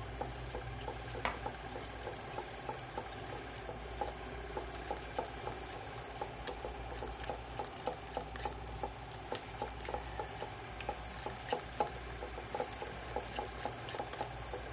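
Spoon clicking and scraping against a mixing bowl as runny pancake batter is stirred: quick, irregular little knocks, several a second, coming faster toward the end.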